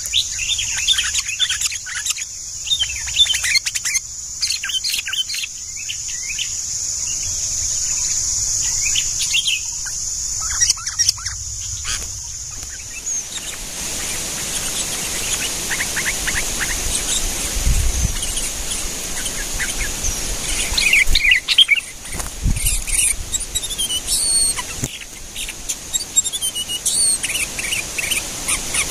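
Sooty-headed bulbuls (kutilang) calling with many short, repeated chirps. A steady high-pitched drone runs under the calls through the first half, and there are a couple of low rumbles in the second half.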